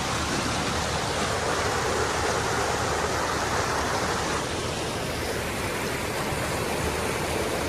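Shallow river rushing steadily over rocks and gravel.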